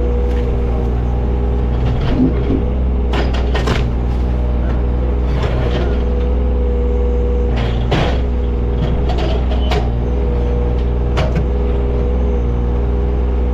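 John Deere 35G mini excavator's diesel engine running steadily, with scattered clanks and knocks as it works through a pile of brush and concrete debris, bunched a few seconds in, around the middle and again a little later.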